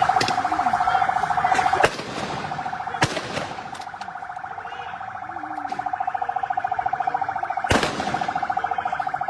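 Electronic siren sounding one steady, rapidly pulsing tone. It drops in level about two seconds in and grows loud again in the second half. Three sharp cracks cut through it, at about two, three and eight seconds.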